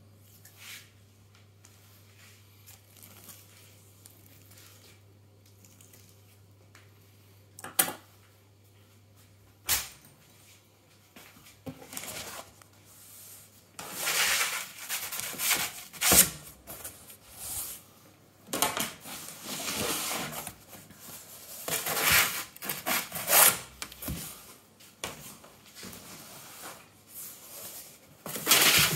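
For the first third only a faint steady low hum, with two sharp knocks. Then loaves on baking paper are slid off a wooden loading board onto the decks of a Rofco B40 oven, with repeated loud scraping and paper rustling as the board and paper drag across the decks.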